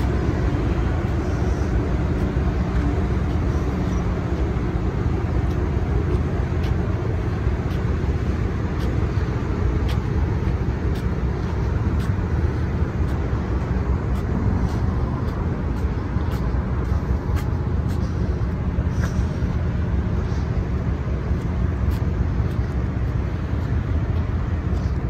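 Steady low rumble and hum of a moored cruise ship's onboard machinery, with no change in level.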